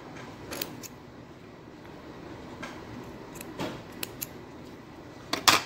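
Small scissors snipping notches into the seam allowance of a sewn fabric piece: a series of short, separate snips, the loudest just before the end.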